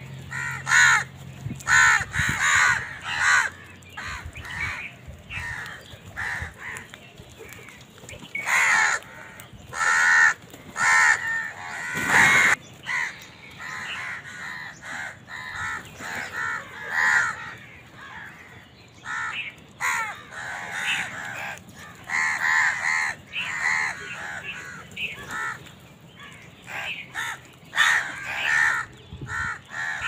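A flock of house crows cawing over and over, harsh calls overlapping in bunches with short gaps, as they squabble over food. One especially loud caw comes near the middle.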